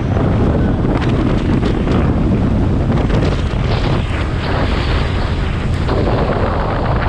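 Wind buffeting the microphone on a moving motorcycle at about 60 km/h, a loud, steady rushing noise.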